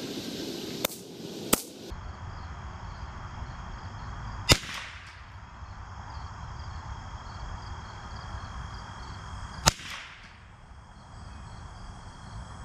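Ruger 10/22 semi-automatic .22 rimfire rifle firing single shots, each a sharp crack with a short echo: two fainter shots about a second apart at the start, then two louder ones about five seconds apart.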